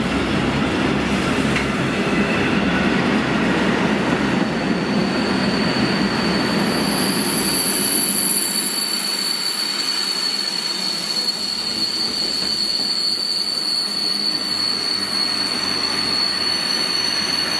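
Freight train of covered steel-coil wagons rolling past, a continuous rumble of wheels on rail. About a third of the way in a steady high-pitched squeal sets in and holds while the rumble eases.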